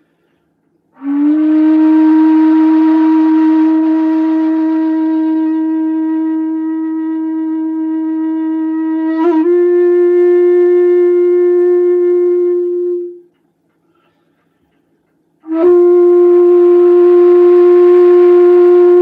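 Solo shakuhachi, a long bamboo end-blown flute, playing slow long-held low notes with breathy attacks. The first note swells in about a second in, steps slightly up in pitch about 9 seconds in and fades out near 13 seconds; after about two seconds of silence a new note starts sharply and is held.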